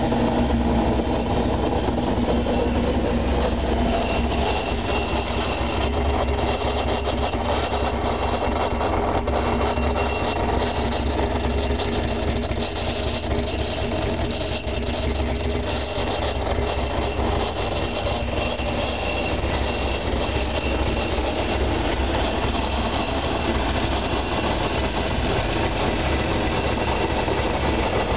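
2000 Sea-Doo GTX personal watercraft's two-stroke engine idling steadily, out of the water.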